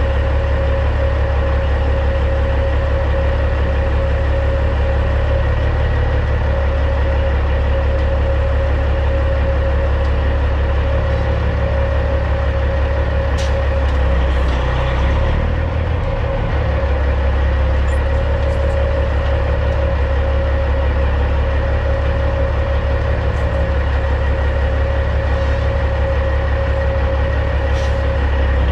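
Caterpillar C15 diesel of a Peterbilt 379 semi running steadily at low speed, with a brief change in engine note about halfway through. A few faint clicks are heard over it.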